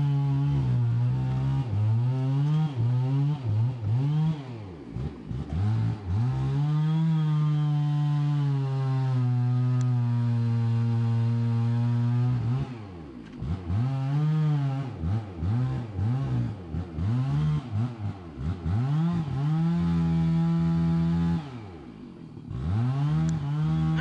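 Two-stroke chainsaw being revved over and over. It is held at high revs for several seconds at a time, and between runs the pitch falls and rises again as the throttle is let off and opened.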